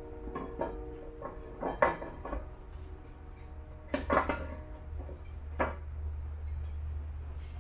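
Knocks and clunks of an intake manifold being set down and seated on the engine, with the sharpest knocks about two and four seconds in, over a steady low hum.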